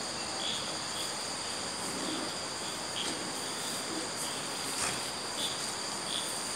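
Crickets trilling in a steady, continuous high chorus, with occasional short chirps over it.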